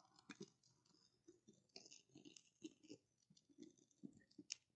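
Faint, scattered crackling and clicking of birch bark and kindling being handled and lit with a lighter, with a sharper click near the end.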